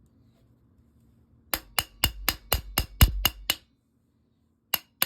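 Hammer tapping during trigger installation: nine quick, sharp strikes at about four a second, then a pause and two more taps near the end, as a part is driven into place.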